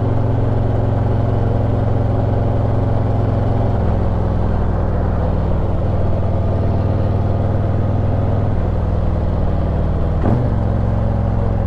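Harley-Davidson V-twin running on the road through Rinehart exhaust fitted with FuelMoto tunable inserts, its pitch holding steady and then changing in steps a few times, with a brief dip about ten seconds in.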